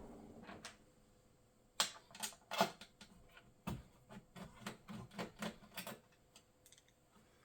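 Screwdriver and screws clicking and tapping against the inner metal cover of an M73z all-in-one PC as the cover's screws are backed out and the cover is handled. The sharpest clicks come about two to three seconds in, followed by a run of smaller clicks.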